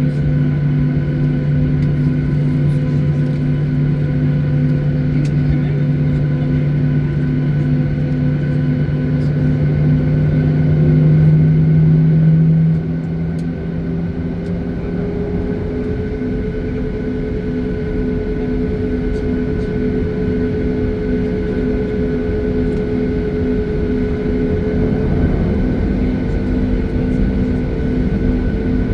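Jet airliner cabin noise: steady engine and airflow noise with several steady hums. About twelve seconds in the strongest low hum cuts off and the sound gets a little quieter, and a higher tone then rises slowly.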